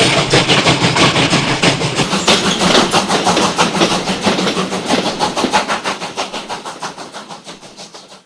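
Train running on the rails with a fast, even clickety-clack of about five beats a second, fading steadily away over the last few seconds.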